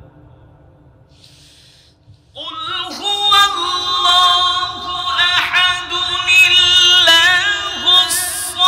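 A qari's melodic Quran recitation (tilawat), sung into a microphone. After a brief pause, a long, high, ornamented held phrase starts about two seconds in and carries on.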